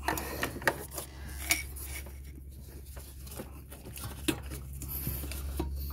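A plastic piece at a Honda Odyssey's engine mount being worked loose by hand: irregular clicks, knocks and scrapes of plastic against metal, with a few sharper clicks. A steady low hum runs underneath.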